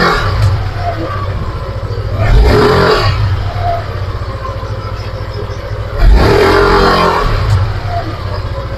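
Yamaha NMAX 155 scooter's single-cylinder engine idling and revved twice in short throttle blips, a few seconds apart. The CVT's whine on initial throttle is no longer there after the repair.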